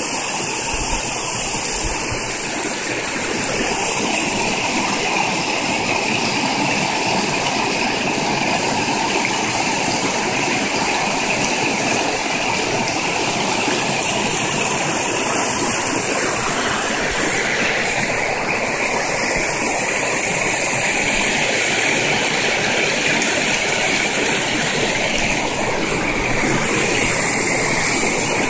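Shallow creek rapids rushing over and around boulders, loud and steady.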